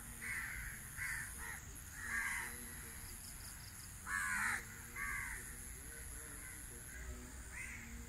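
Crows cawing to each other, a string of separate caws with gaps between them, the loudest about four seconds in.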